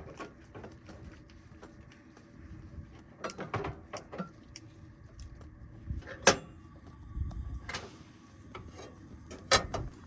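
Camp cooking gear being handled and set down: a handful of separate knocks and clacks, the sharpest a little past halfway and another near the end.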